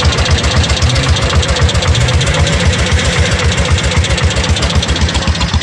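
Vintage Arctic Cat Panther snowmobile's Kohler two-stroke engine idling loudly with a steady, even pulse.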